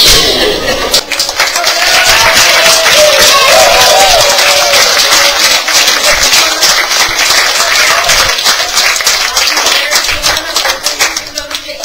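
Audience applauding: many hands clapping, with a brief voice or cheer a few seconds in, thinning out near the end.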